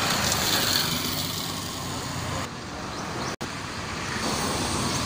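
Street traffic noise from passing cars and motorbikes, louder in the first second, with a sudden brief dropout a little past halfway.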